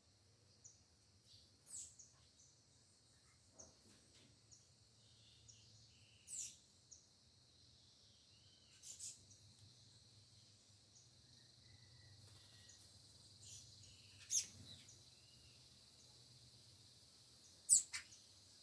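Birds calling in short, sharp downward-sweeping chirps every few seconds, the loudest near the end, over a steady high insect drone.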